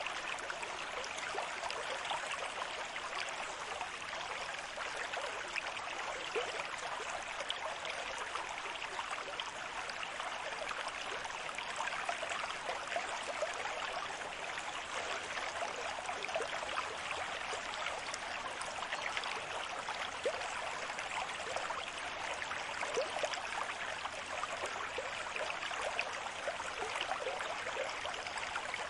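Steady rushing water with a constant fizz of small splashes and bubbles, holding an even level without distinct wave swells.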